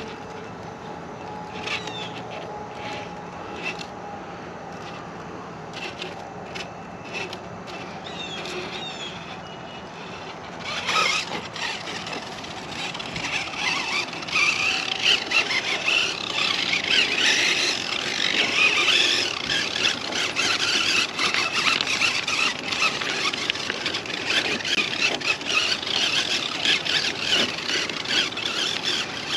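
1/10-scale RC crawler driving: its electric motor and gears whine while the tyres scrape and grind over the course. It is quieter with scattered clicks at first, then gets louder and rougher about eleven seconds in.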